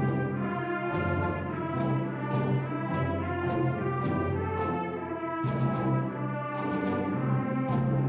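Concert band playing a brass-led fanfare: full held chords from trombones, horns and trumpets with the winds, and frequent short percussion hits.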